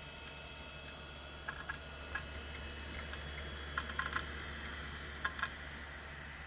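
A handful of keystrokes on a computer keyboard in short clusters, over a steady low hum of running equipment.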